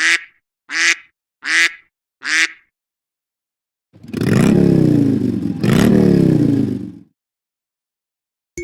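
A phone ringtone or notification sound playing: four short calls about 0.7 seconds apart, then two longer, noisy falling swoops over about three seconds.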